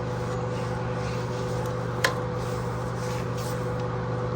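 Steady mechanical hum, with one sharp click about two seconds in.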